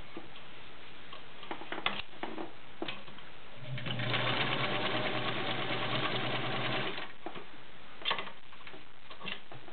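Kenmore Model 95 all-steel sewing machine with a 1.2 amp motor, sewing a zigzag stitch through six layers of denim. It runs steadily for about three seconds in the middle and then stops, with a few light clicks before and after the run.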